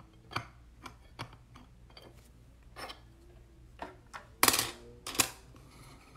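Hard plastic card cases clicking and knocking against each other and against clear acrylic display stands as they are lifted and set down: scattered light taps, with the two loudest knocks close together near the end.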